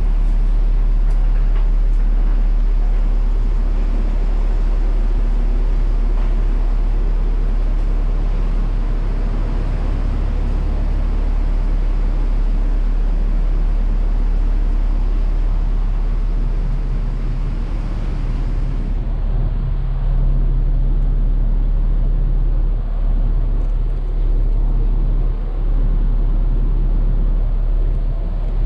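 Sakurajima ferry's engines running under way with a steady low drone, mixed with the rush of air and water heard on the open deck.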